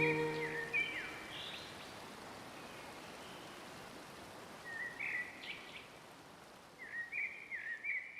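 Music ends within the first second, leaving a steady rush of falling water. A bird gives short chirping calls about five seconds in and again near the end.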